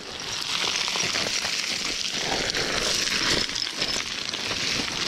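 Loose scree stones crunching and sliding under hiking boots on a fast descent of a steep scree slope: a continuous gritty rattle of small rocks, full of tiny clicks.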